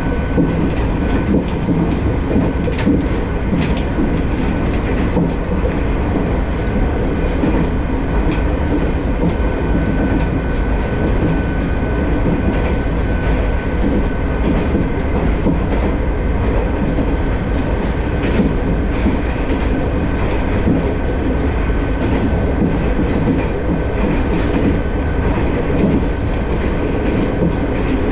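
Moka 14 diesel railcar running along the line: a steady drone of engine and wheels on rail, with a faint high steady whine and light clicks as the wheels cross rail joints.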